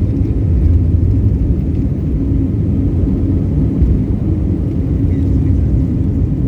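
Steady low rumble of an IndiGo airliner's jet engines and airframe, heard from inside the passenger cabin.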